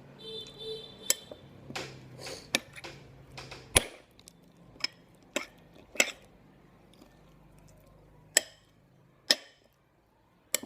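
Scattered sharp clicks and taps of small containers and utensils being handled during slime-making, at irregular intervals with one louder knock about four seconds in. There is a brief high squeak near the start.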